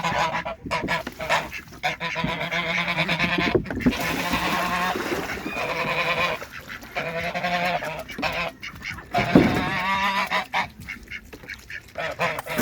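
Farm geese honking repeatedly in bouts. A steady hiss comes in about four seconds in.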